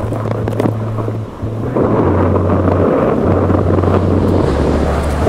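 Heavy surf rushing and wind buffeting a waterproof microphone in the water: a loud, even roar that drops away briefly about a second and a half in and then comes back louder. A low steady hum sits underneath and steps to a new pitch every second or so.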